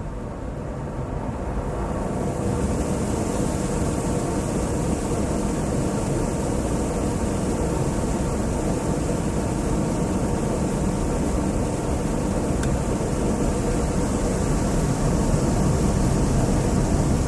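Automatic car wash heard from inside the car: a steady low rumble of the machinery with a rushing hiss of spray, the hiss swelling in about two seconds in and then holding.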